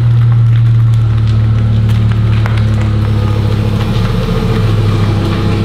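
Twin-turbocharged Audi R8 V10 engine running steadily at low revs as the car creeps into a garage.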